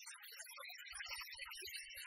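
Tempura frying in a pot of hot oil: a steady, fine crackling sizzle, with a few soft knocks from about a second in, probably from the utensils.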